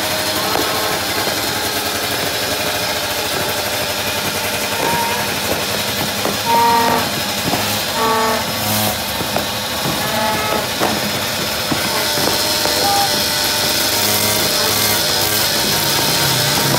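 Dense crackling and popping of firecrackers and fireworks, with a horn tooting a few short times near the middle.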